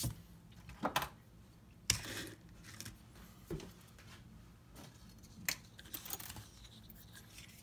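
Scattered light clicks and knocks of a plastic jar of soldering flux and a handheld torch being set down and handled on a workbench, the sharpest about two seconds in and about five and a half seconds in.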